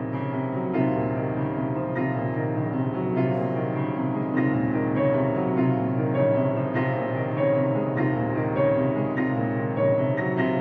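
Live chamber ensemble music: piano notes struck in a steady, even pulse over held string tones.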